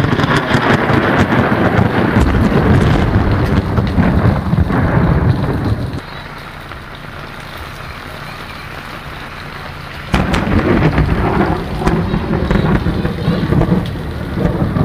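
Rain falling on standing floodwater: a loud, dense noise with a heavy low rumble. It drops to a quieter hiss about six seconds in and comes back suddenly about ten seconds in.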